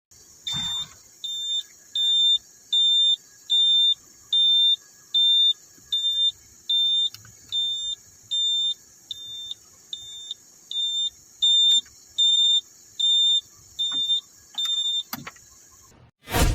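Excavator cab monitor's warning buzzer beeping repeatedly in short, evenly spaced high beeps, about one and a half a second, as the XCMG XE215C shows error E4020, a CAN bus communication fault. A whoosh near the end.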